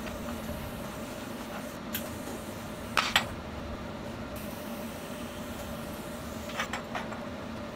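Steady machine hum, like a running fan, with a few sharp metallic clicks: two loud ones close together about three seconds in and a quick run of smaller ones near the end.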